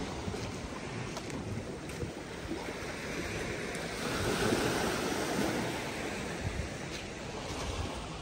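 Sea surf washing, with wind on the microphone, swelling about four seconds in.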